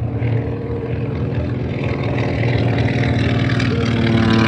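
Grumman J2F Duck's Wright R-1820 Cyclone radial engine droning past in a low flyby, growing louder as it comes by.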